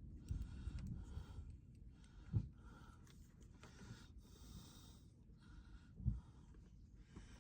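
A person breathing heavily in and out close to the microphone, with two dull thumps, about two and a half and six seconds in.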